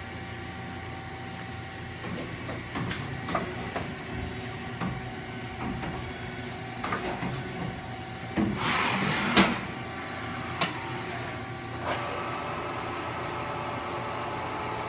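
Femco FV-40 CNC vertical machining center running: a steady machine hum with clicks and clunks, a brief rushing burst about nine seconds in, and from about twelve seconds a steady whine, the spindle running smoothly.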